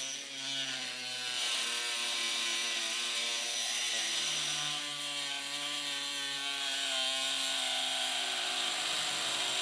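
Handheld rotary tool with a thin cut-off disc running and cutting through a diecast metal toy truck body. It gives a steady whine that shifts slightly in pitch as the disc bites into the metal.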